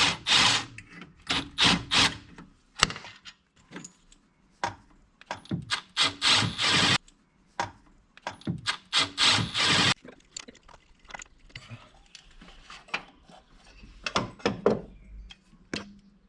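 Hand socket ratchet being worked in several quick runs of clicking strokes, with quieter scattered tool knocks between runs and toward the end.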